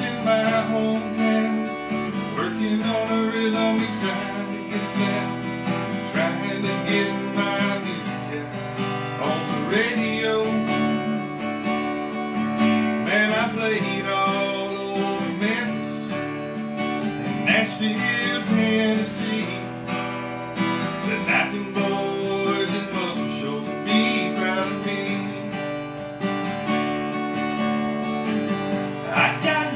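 Cutaway acoustic guitar being strummed, a steady run of chords with regular strokes.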